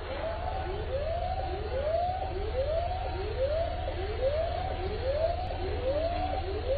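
Emergency vehicle siren wailing, its pitch rising and falling a little more than once a second, over a steady low rumble.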